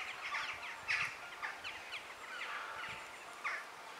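Birds chirping: many short, quick high calls, several a second and overlapping.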